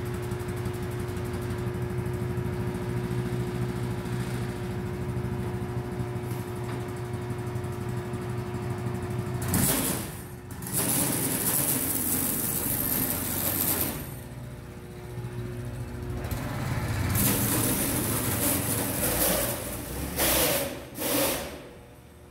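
212cc single-cylinder go-kart engine idling steadily just after starting, then running louder in surges from about ten seconds in as the kart is driven, with the loudest surges near the end.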